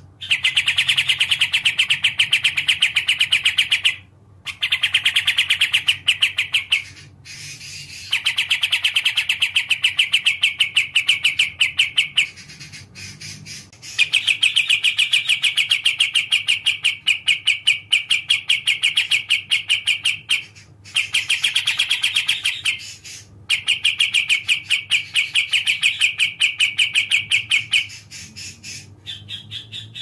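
Kapas tembak (olive-winged bulbul) singing its rapid, rattling trill in phrases of two to six seconds, repeated with short pauses.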